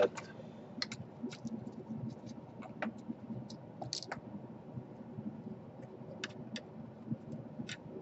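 Scattered light clicks and taps, irregular and about fifteen in all, from small tools and parts being handled on a laptop's plastic and metal palmrest.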